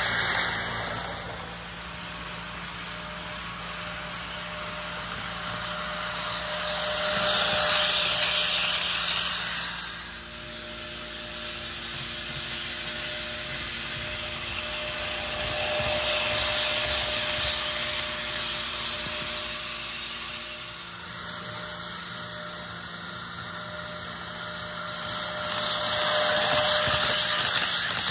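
Auscision HO scale Tangara model electric train running on the track, its wheels and motor making a rushing rumble that swells loudly three times as the train passes close by, with a faint steady tone underneath.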